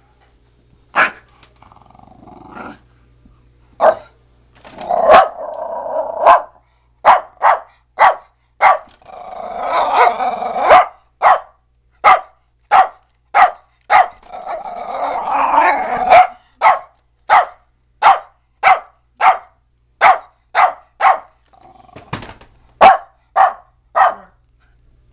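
Cairn terrier barking sharply over and over, about one or two barks a second, with three longer bouts of growling between the barks.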